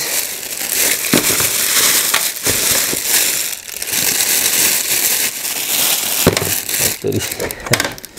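Plastic wrapping crinkling and crackling in irregular handfuls as it is pulled and bunched off a ring light.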